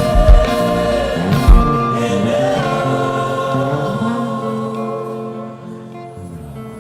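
Gospel worship music: a choir singing over held chords, with a few heavy low thumps in the first second and a half. The music then thins and fades down toward the end.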